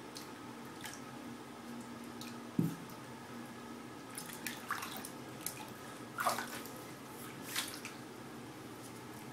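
Bath water splashing and dripping in short, scattered bursts as a baby paddles a foam letter through the tub, with a few sharper splashes, over a steady low hum.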